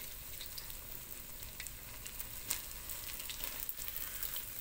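Food sizzling in a frying pan: a steady soft hiss with scattered small crackles and pops.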